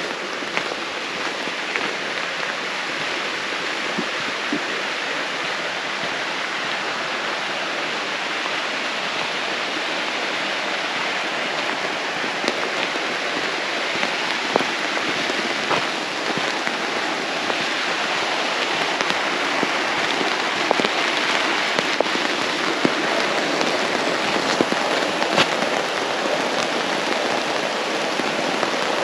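Steady rain falling, with scattered sharp ticks of drops striking a surface close by; it grows a little louder over the second half.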